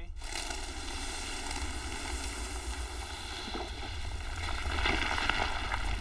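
Low rumbling with a hissing, crackling rush of loose sand and soil on the move, growing louder from about four seconds in: a sandy trench wall starting to give way.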